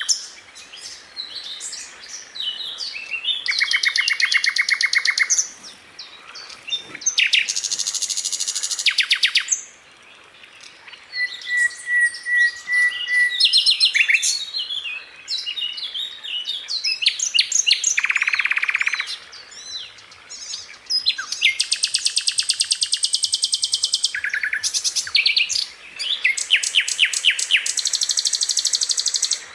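Sikatan londo flycatcher singing: a varied run of fast rattling trills and sharp high notes, with a short steady whistle about eleven seconds in.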